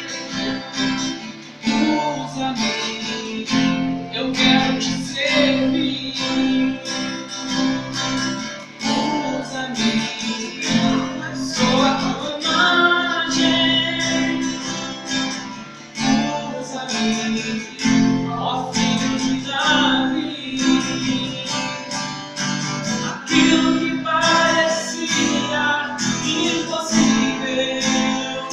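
A young man singing while strumming a cutaway acoustic guitar in a steady rhythm.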